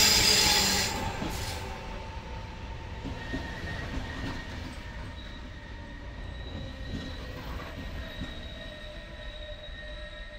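Regional passenger train running into a station platform: a loud rush as the front of the train passes, fading over the first couple of seconds into a low rumble, with thin, steady high squealing from the wheels as it slows.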